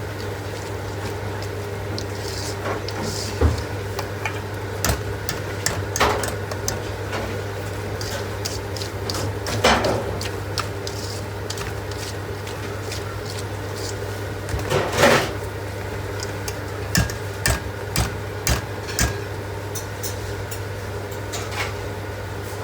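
Kitchen handling sounds: scattered knocks and clinks of utensils and containers, with a couple of longer scraping or rustling noises, over a steady low hum.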